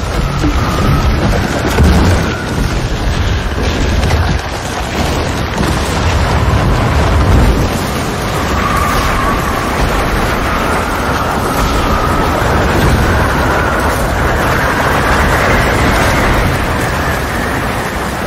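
Avalanche in film sound design: a loud, continuous roar of rushing snow with heavy low rumbling, which eases about halfway through while a wavering high tone carries on above it.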